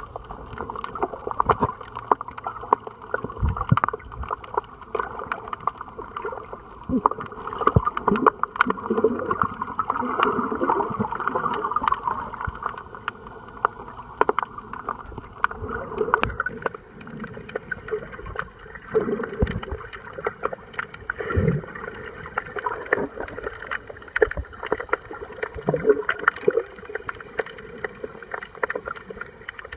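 Muffled water sloshing and gurgling picked up by a camera held underwater, with many scattered clicks and a few dull knocks.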